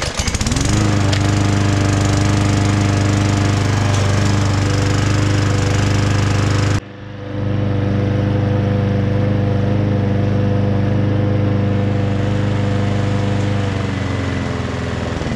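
Victa Classic Cut lawn mower's 140cc petrol engine starting, rising quickly to a steady run. There is a sudden short break about seven seconds in, then it runs on steadily, dropping a little in speed near the end.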